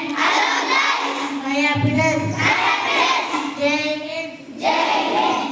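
Children singing, holding long drawn-out notes in phrases with short breaks between them.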